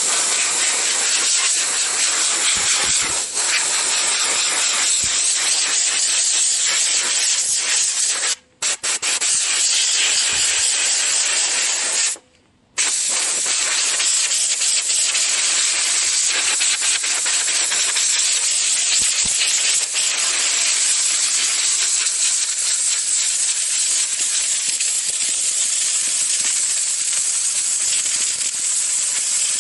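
Compressed air hissing steadily as it blows dust out of a truck's cabin air filter, which is dirty and nearly clogged. The air cuts off briefly twice, about 8 seconds and about 12 seconds in.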